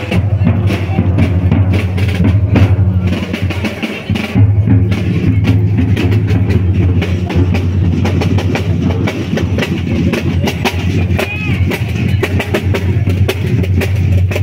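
Marching drum and lyre band playing: big bass drums and snare drums beating a steady march rhythm, with bell lyres (marching glockenspiels) ringing over the drums. The playing drops briefly about four seconds in, then carries on.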